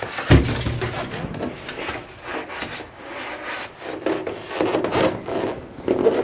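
Foil-faced foam insulation board rubbing and scraping against the ribbed steel ceiling of a shipping container as it is pushed up into place, with a dull thump about a third of a second in.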